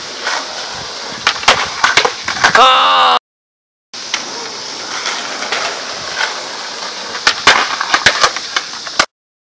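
Skateboard wheels rolling on asphalt with sharp clacks of the deck and tail hitting the pavement and concrete parking blocks. The sound cuts out completely for a moment a few seconds in, and again near the end.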